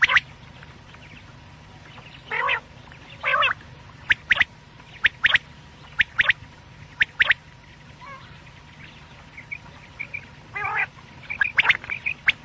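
Quail calling: sharp, clipped notes, mostly in pairs about a third of a second apart, with a few longer, lower, rougher calls between them and a quicker run of chirps near the end. This is the kind of call played back as a lure for quail hunting.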